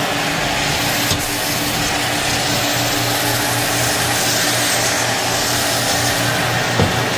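Shark vacuum cleaner running steadily over carpet, with a constant hum and two brief knocks, one about a second in and one near the end.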